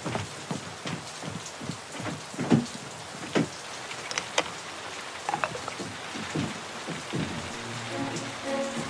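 Steady rain-like hiss with scattered knocks and thuds. Soft music with held notes comes in near the end.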